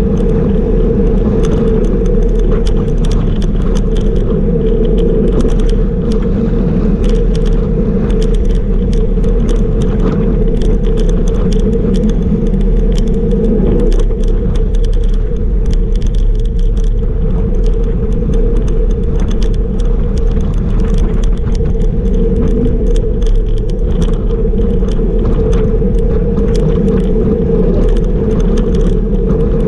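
Steady wind rush and road rumble on a camera riding on a bicycle at about 37 km/h, with constant small rattles and ticks from the bike and mount.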